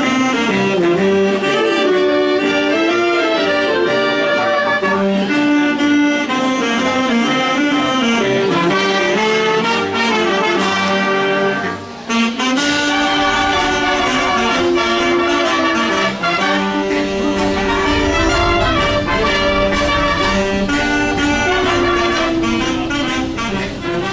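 Youth wind band playing a jazzy tune, with trumpets, saxophones and trombones carrying the melody. There is a brief break about halfway through, after which a deeper bass comes in.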